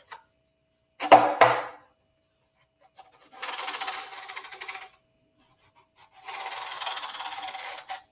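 A ring magnet scraping across a sheet of corrugated cardboard as it is moved over the surface, showing the magnet's pull working through the cardboard. There are two rasping strokes of about a second and a half each, after a brief louder knock about a second in.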